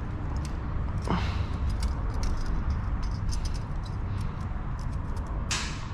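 Scattered light clicks and taps of engine parts being handled while a cylinder-head gasket is fitted, with one brief louder scrape or rustle near the end, over a steady low hum.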